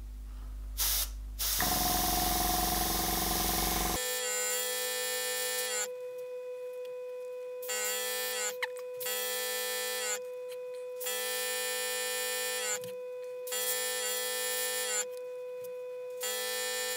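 Airbrush spraying paint through a stencil in repeated short bursts of one to two seconds, as the trigger is pressed and released, over a steady hum.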